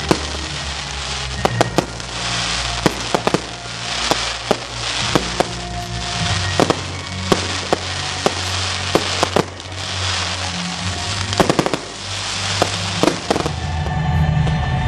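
Aerial fireworks bursting: rapid, irregular sharp bangs with repeated swells of crackling sparkle, which stop about a second and a half before the end. Background music plays underneath throughout.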